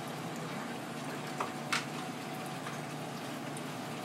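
Steady hiss of a restaurant kitchen's background noise, with two light clicks close together about a second and a half in, the second sharper.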